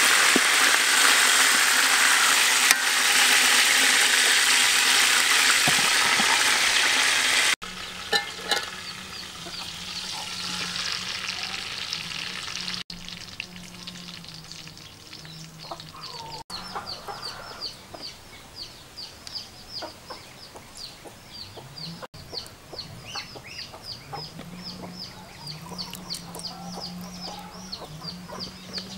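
Whole chicken sizzling loudly as it fries in hot fat in a metal pot, turned with a spatula; the frying cuts off abruptly after about seven and a half seconds. After that it is much quieter, with rapid high-pitched chirping repeating several times a second.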